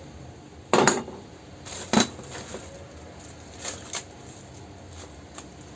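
Parts of a dismantled demolition hammer being handled on a workbench: a few short knocks and clicks, the loudest about a second in and at two seconds, with lighter clicks after.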